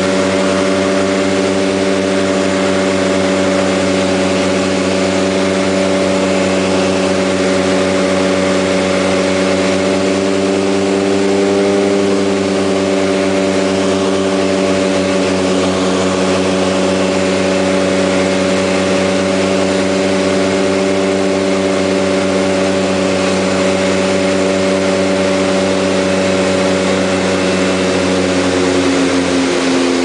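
Turboprop engines and propellers of a de Havilland DHC-6 Twin Otter, heard inside the cabin, running with a steady blend of several tones on final approach. Near the end the pitch drops as power comes off for the landing.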